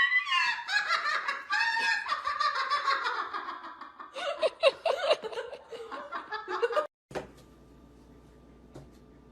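A person laughing hard in high-pitched, rapid bursts for about seven seconds, then it cuts off abruptly to faint room tone with a thin steady hum.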